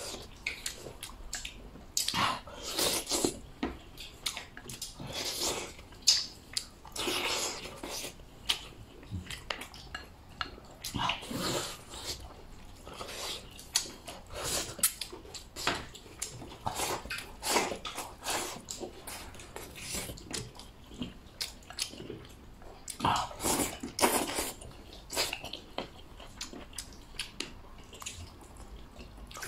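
A person eating noodles from a bowl with chopsticks: repeated slurps and chewing in irregular bursts.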